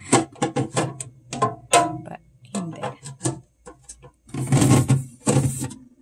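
Hard plastic refrigerator bin being fitted into place by hand: a run of sharp clicks and knocks. About four seconds in, it gives way to longer, louder stretches of plastic rubbing and scraping.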